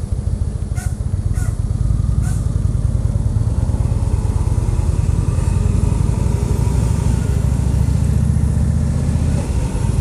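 2014 Indian Chief Vintage's Thunder Stroke 111 V-twin running steadily at low road speed in traffic, its firing pulses heard from the rider's seat. A few faint clicks come in the first two seconds or so.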